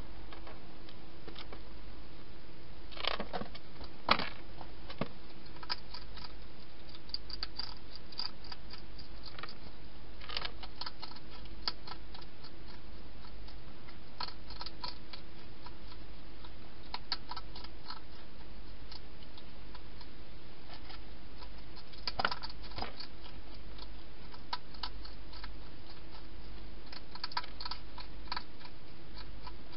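Wild hedgehog eating inside a plastic feeding box: irregular small clicks and crackles of chewing and of the animal moving against the bowls, with a few louder knocks about three to four seconds in and again about twenty-two seconds in. A steady low hum runs underneath.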